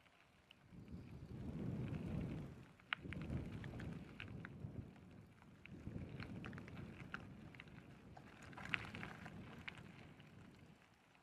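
Gusts of wind rumbling on the microphone in irregular swells, with scattered light clicks over them.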